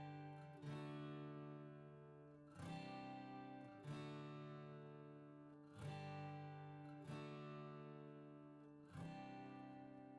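Quiet background music: slow acoustic guitar chords, each strummed and left to ring and fade, about six in all.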